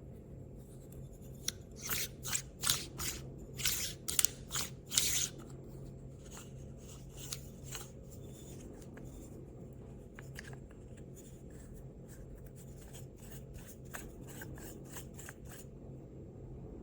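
Short clicks and scrapes of something being handled, about two a second and loudest in the first few seconds, then fainter. A steady low hum sits underneath.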